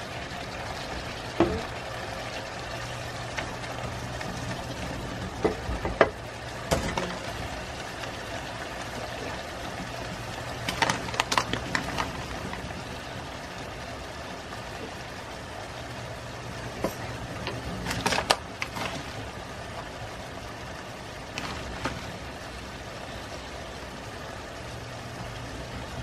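Tomato sauce simmering in a frying pan over a steady low hum, with a handful of sharp clicks and knocks of a spoon and utensils against the pan, the loudest about six seconds in.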